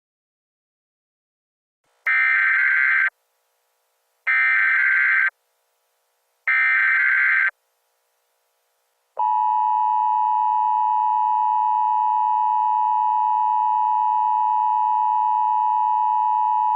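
Emergency Alert System SAME header: three one-second bursts of shrill digital data tones, evenly spaced. About a second and a half after the last burst, the steady two-tone EAS attention signal begins.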